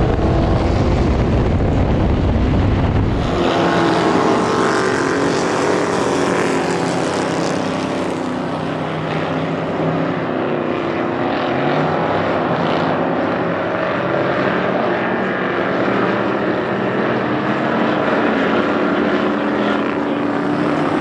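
A stock car's engine heard from inside the cabin at racing speed, a heavy low rumble. About three seconds in, it switches to several stock cars racing on a dirt track, heard from trackside, their engines rising and falling in pitch as they accelerate and lift.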